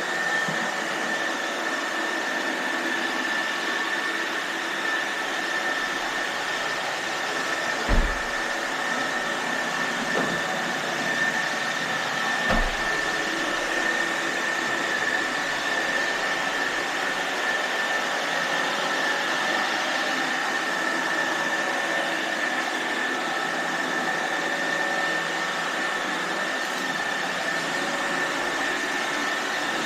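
iRobot Roomba robot vacuums running, a steady whir with a high whine from the vacuum motors and brushes. Two short thumps, about eight and twelve seconds in.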